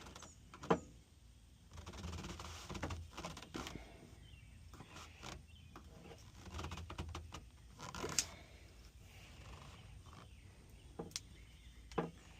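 Sound deadening mat being scraped and pried off a car's sheet-metal floor: irregular scrapes with scattered sharp clicks, the sharpest a little under a second in and again about eight seconds in.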